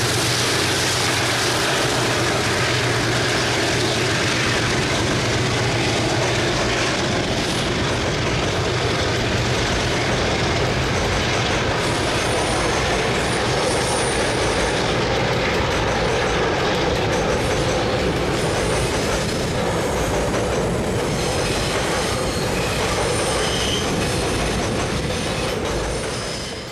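Diesel-hauled train rolling past: a steady rumble and rattle of wheels on the rails, with a low drone that dies away after about seven seconds and faint high wheel squeal in the middle. It fades out at the very end.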